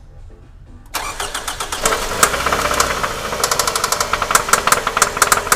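Toyota Camry's 2.4-litre 2AZ-FE four-cylinder engine cranks and catches about a second in, then runs with a sharp, loud knock repeating several times a second. The knock comes after a rebuild, from an engine whose timing chain hangs slack and whose oil carries silver metal particles.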